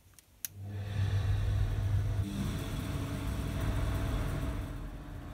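A switch clicks, then a wall-mounted electric exhaust fan starts up within about half a second and runs with a steady hum.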